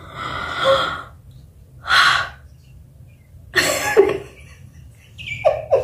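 A woman's dramatic gasps and breathy exclamations: four short bursts of breath about a second and a half apart, the last with a falling voiced sound.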